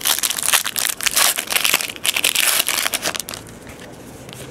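Foil wrapper of a 2009 SP Legendary Cuts baseball card pack torn open and crinkled by hand for about three seconds, then quieter handling of the cards as they are slid out.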